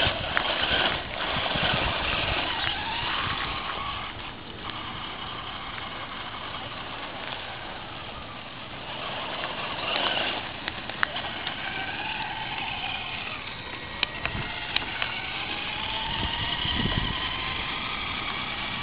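Traxxas Slash radio-controlled truck driving slowly while towing a boat trailer: its motor whine rises and falls with the throttle over a steady rattle of small wheels rolling on gravel and pavement, with a few sharp ticks.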